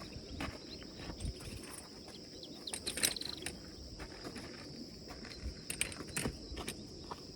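Insects chirring steadily at a high pitch, with scattered short clicks and knocks.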